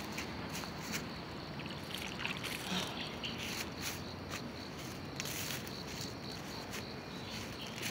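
Footsteps on a dirt path covered in dry leaves, irregular crunching steps about every half second, over a steady high insect chirring.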